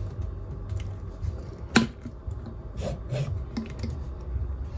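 Handling noise from a plastic electric travel mug on a counter: one sharp click a little under two seconds in, then a few softer taps and clicks.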